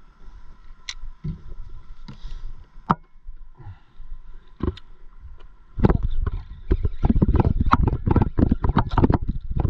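Water splashing and knocking against a stand-up paddleboard, sparse clicks at first, then loud and busy from about six seconds in.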